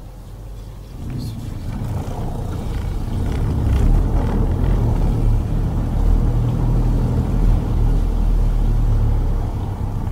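Car driving up the ramp onto a ferry's vehicle deck: a low rumble of engine and tyres that builds from about a second in and eases off near the end.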